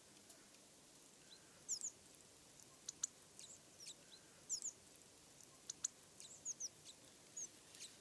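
Small songbirds calling: scattered short, high-pitched chirps and sharp ticks, some in quick pairs, over faint background hiss.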